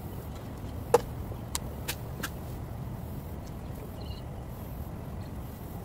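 Four short, sharp clicks between about one and two and a half seconds in, the first the loudest: the hinged lid of a plastic fiber distribution box being shut and latched. Under them a steady low background rumble.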